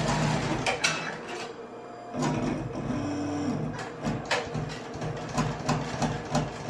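Multi-needle embroidery machine stitching placement guides through cork, running as a steady hum with quick clicking needle strokes. The stitching eases off briefly about a second and a half in, and a short hum sounds a little after three seconds.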